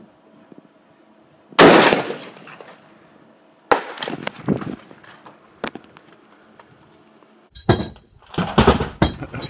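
A single rifle shot about a second and a half in, sharp and ringing out as it fades, followed by a few quieter metallic clacks and clicks. Near the end comes a choppy run of rough knocking and rustling.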